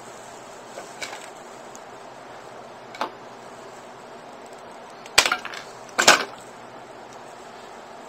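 Hand cutters snipping off the stripped end of RG213 coax: a couple of light clicks, then two sharp snaps about five and six seconds in as the cutters bite through the cable.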